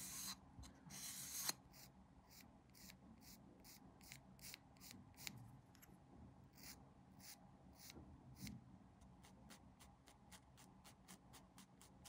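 Quiet, short scraping strokes of a hand tool on a plastic model-kit part, as in filing or sanding. There are two longer strokes in the first second and a half, then a run of short ones that come faster near the end.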